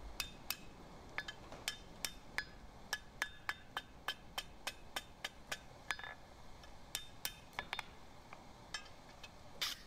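Light, quick hammer taps on a forged steel bar over the anvil horn, about two to three a second, each with a short metallic ring, as the bend is straightened.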